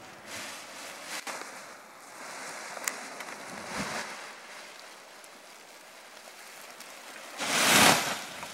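Wind rushing and rustling on the microphone, with a few faint clicks and one loud gust of rushing noise near the end.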